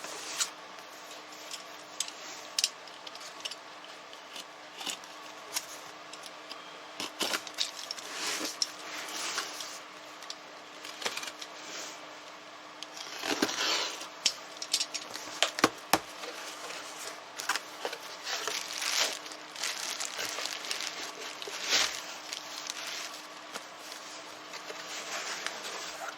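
A parcel being handled and opened by hand: irregular tearing, rustling and crinkling of packaging with scattered clicks and knocks, over a faint steady hum.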